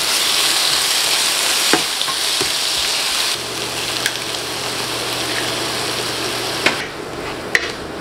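Bitter melon, tomatoes and spinach sizzling in hot oil in a nonstick frying pan while a spatula stirs them, with a few light clicks of the spatula against the pan. The sizzle drops a little about three seconds in and again near the end.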